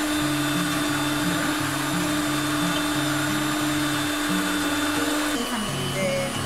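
Electric stand mixer running steadily with its beaters in a thickening dough as flour is added. About five seconds in, the motor's pitch drops.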